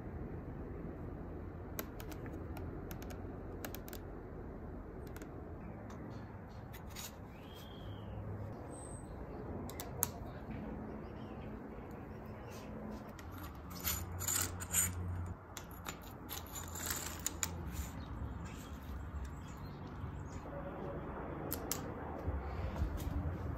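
Hands fitting a rubber lock-on grip and controls onto a bicycle handlebar: scattered small clicks and taps of metal and plastic parts, and rubbing as the grip is pushed and twisted onto the bar, busiest a little past the middle. A steady low hum sits under it.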